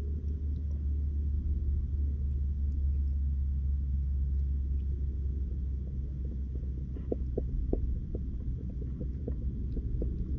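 Steady low rumble of water around an underwater camera, with a run of short clicks starting about seven seconds in.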